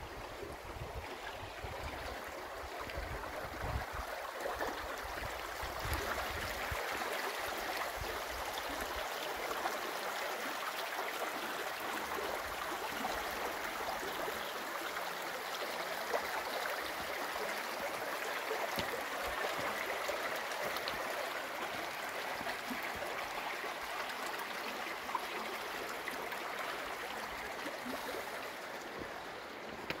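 Shallow stream running over stones: a steady rushing babble. Wind rumbles on the microphone for the first several seconds, then eases.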